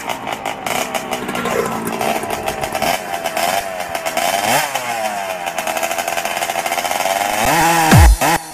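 Motorcycle engine revving, its pitch rising and falling again and again. Near the end a loud, deep falling electronic sweep and hit break in as dubstep music resumes.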